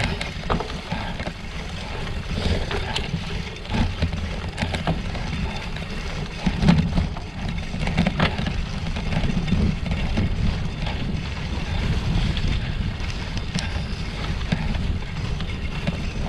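Wind rumbling on the microphone over a gravel bike rolling along a rough snowmobile trail, with scattered clicks and rattles from the tyres and bike on the uneven ground.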